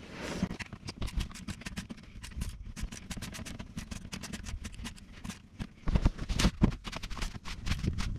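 Ratchet with a 10 mm socket clicking rapidly and fairly evenly as an under-engine tray bolt is undone, with a few heavier knocks near the end.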